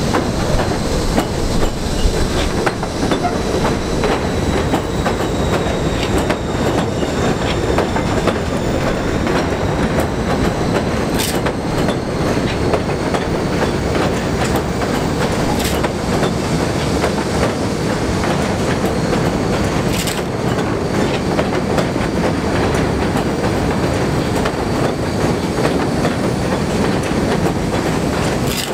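Kawasaki R68A subway train running past, a steady rumble of wheels on rails with rapid clicking over rail joints, a few sharper clicks and a faint high steady whine.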